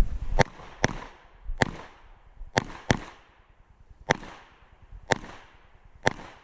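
Shots from a 9mm Glock 47 pistol: about eight sharp cracks, mostly single and roughly a second apart, with a quick pair near the middle, each trailing off in a short echo.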